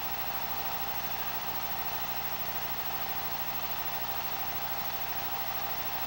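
Film projector running: a steady mechanical whir with hiss and a low hum that holds unchanged throughout.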